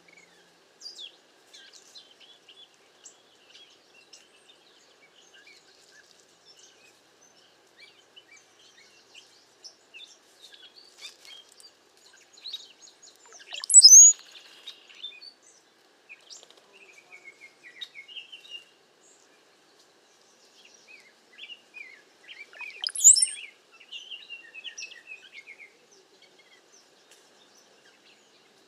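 A bunch of cowbirds calling: scattered high chirps and squeaks throughout. Twice there is a loud, sharp, high whistle that rises steeply, once about halfway through and once later on.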